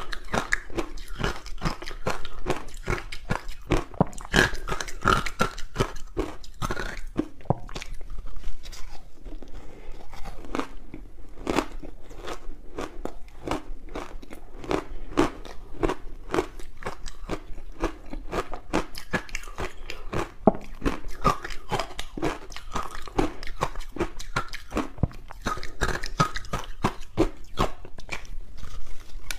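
Soft frozen green barley ice balls being bitten and chewed: a dense, continuous run of small crisp crunches as the frosty ice breaks in the mouth.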